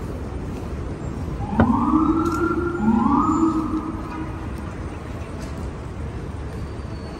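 Emergency vehicle siren giving two short whoops about a second apart, each rising in pitch, holding briefly and fading, over steady street traffic noise.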